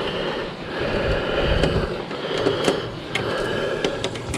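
Screwdriver turned by hand, undoing the screws that hold a circuit board in an autoclave: a continuous scratchy creaking with a few light clicks.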